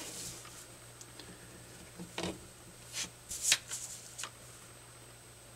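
Small rulers and a right-angle square being set down and slid into place on paper over a building board: a few light taps and scrapes, the loudest about three and a half seconds in.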